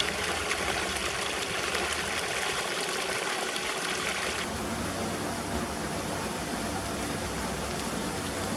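Steady rushing noise like running water; its brighter, hissing part drops away abruptly about halfway through.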